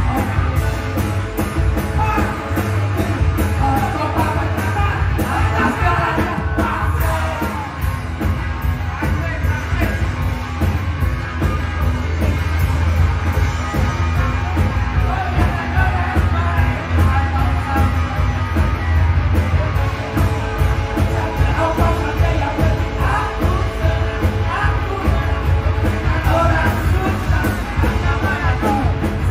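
A live rock band playing loud: a singer's vocals over electric guitars and drums.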